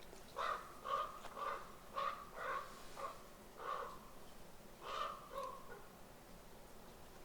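A run of about nine short, harsh animal calls, roughly two a second, ending a little after halfway.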